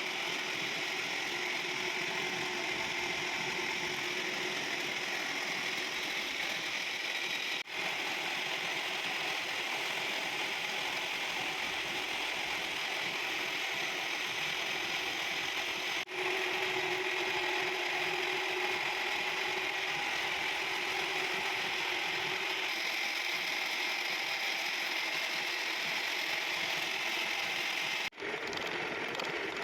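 Metalworking machine tool running steadily while machining a worm shaft: a continuous mechanical whirr that breaks off sharply three times and picks up again at once.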